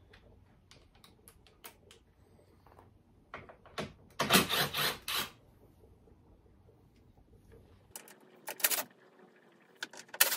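Handling noise: scattered clicks and clatters, with a loud rustling scrape about four seconds in and sharper clatters near the end.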